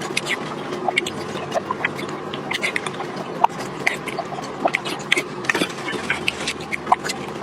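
A person eating eggs close to the microphone: steady wet chewing with many short, irregular mouth clicks and smacks.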